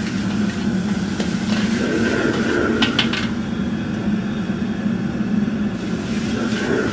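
Steady roar of a restaurant gas wok burner under a wok as noodles are stir-fried. A metal ladle clanks against the wok a few times in the first three seconds.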